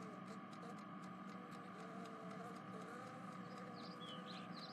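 Near silence: a faint steady background hum with a few faint ticks and small squeaks.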